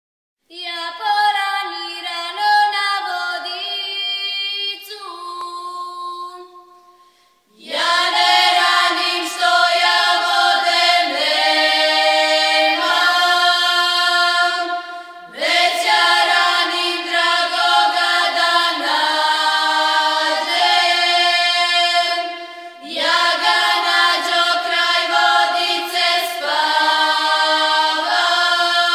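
A small group of women's voices singing a traditional Serbian folk song unaccompanied, in the old village ('izvorna') style. A thinner, softer opening phrase gives way to fuller, louder group singing about a quarter of the way in, with short breaks for breath between phrases.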